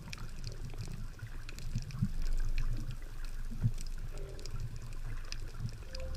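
Seawater sloshing and gurgling around an underwater camera just below the surface, heard as an uneven low rumble with scattered faint ticks and clicks.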